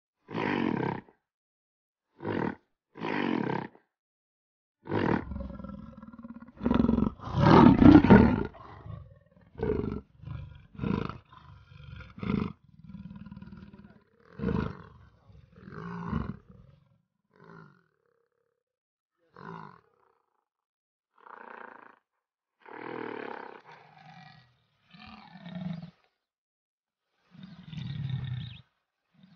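Big cat roaring and growling in a string of short bursts with silent gaps between them, loudest about seven to eight seconds in.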